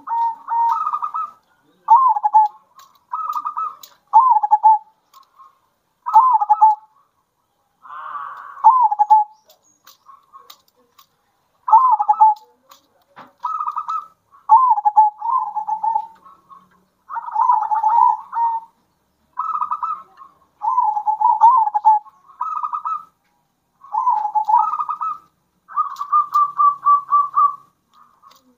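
Zebra doves (perkutut) cooing in short repeated phrases, one after another, with a brief pause about ten seconds in. Some phrases break into a rapid stuttering pulse.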